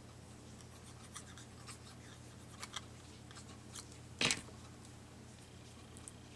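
Quiet handling of paper cut-outs and a glue pen on a work surface: faint scratches and light ticks, with one sharper tap a little past the middle, over a steady low hum.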